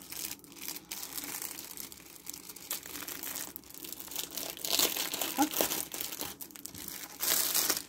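Clear plastic packaging bag crinkling and rustling as a rolled diamond-painting canvas kit is handled, in irregular bursts that are loudest about halfway through and again near the end.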